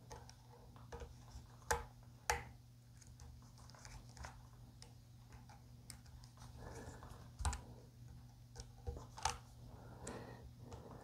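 Small screwdriver driving the mounting screws of guitar tuners into a wooden headstock: faint scattered clicks and scrapes, with a few sharper clicks, over a low steady hum.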